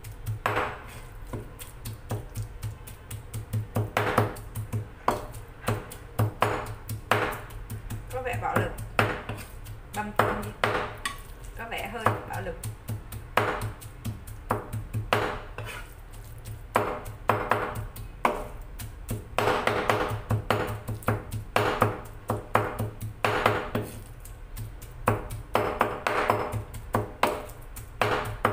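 A kitchen knife chopping steadily on a cutting board, a few strokes a second, mincing shrimp fine, over background music.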